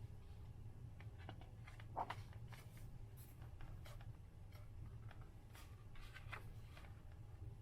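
Faint rustling of paper pages being handled and turned in a hardcover book, with light scattered rustles and one slightly louder one about two seconds in, over a steady low hum.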